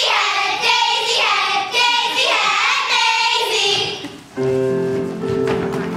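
A group of children singing loudly together; about four seconds in the voices stop and instrumental music with steady held notes begins.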